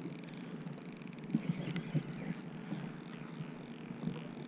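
Spinning reel being cranked, a fine fast whir in the first second or so, over small waves slapping irregularly against the side of a fiberglass boat.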